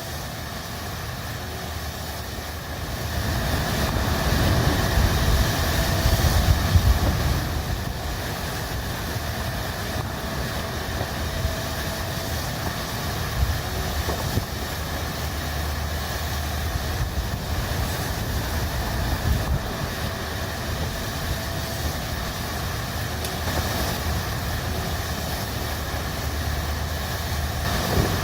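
Strong wind with rain: a continuous hiss under a deep low rumble of gusts, which swells about three seconds in, peaks around six to seven seconds, then settles to a steady strong level.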